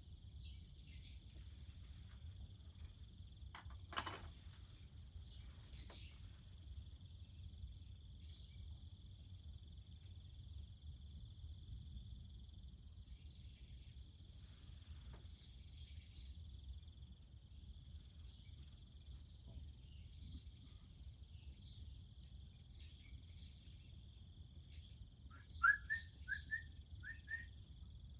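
Faint, steady high-pitched insect chorus over a low outdoor rumble. A single sharp crack comes about four seconds in, and a bird gives a few short chirps near the end.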